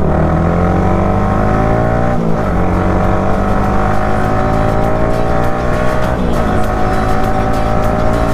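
Yamaha R15 V3's 155 cc single-cylinder engine accelerating hard, its pitch climbing through the gears, with two upshifts where the pitch drops back, about two and six seconds in.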